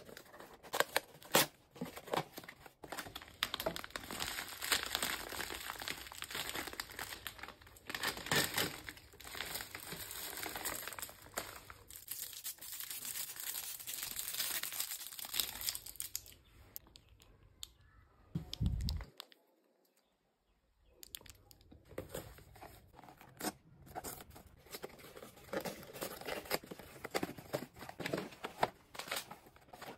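Paper and foil wrappers being torn and crinkled by hand while a gift box of chocolates and the individual chocolates are unwrapped. The rustling stops briefly about two-thirds of the way through, just after a short low thud.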